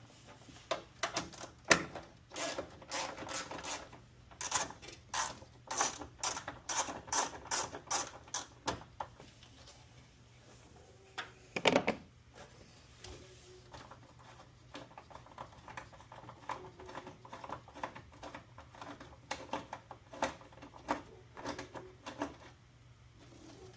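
Rapid, irregular clicking and rattling of hand tools and parts being worked, with a louder knock about twelve seconds in and sparser clicks after it.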